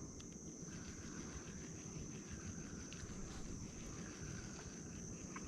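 Insects in mangroves keeping up a steady high drone, with a fainter, lower call that repeats in short stretches about every second and a half.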